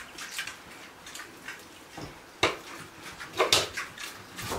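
Pigs eating from a metal feed bowl: irregular short eating sounds, with two louder sharp sounds about two and a half seconds in and again a second later.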